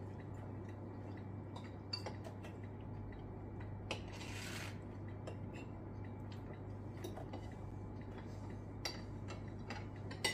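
Quiet table sounds of people eating soup: spoons and bowls clinking lightly in a few scattered clicks over a steady low hum, with a brief hiss about four seconds in.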